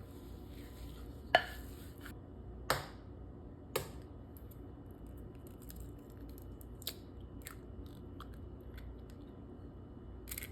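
Kitchen utensils and dishes being handled: three sharp knocks in the first four seconds, then lighter scattered clicks and taps over a low hum.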